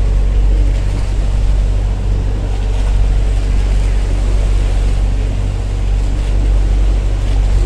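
Engine of a motorized outrigger boat (bangka) running steadily at cruising speed, a constant low drone, with wind and water rushing past the hull.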